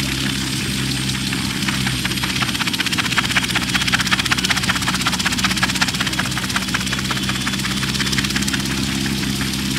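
Mil Mi-2 twin-turbine helicopter lifting off and hovering low: a steady engine drone under the rapid chop of the turning main rotor, swelling slightly a few seconds in.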